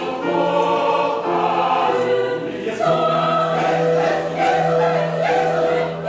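Church choir singing in long held chords; the chord changes about three seconds in.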